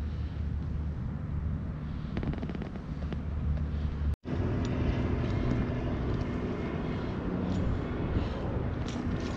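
Steady low outdoor rumble with a hiss over it, broken by a brief cut to silence about four seconds in.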